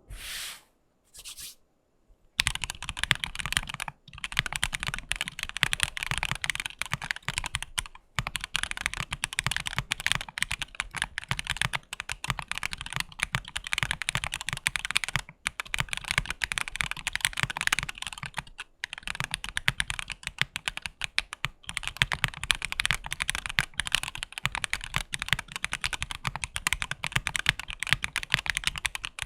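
Fast, continuous typing on a Maggio 60 mechanical keyboard fitted with Gateron CJ linear POM switches, an FR4 half plate and a gummy O-ring mount. The typing starts about two seconds in and runs with a few brief pauses.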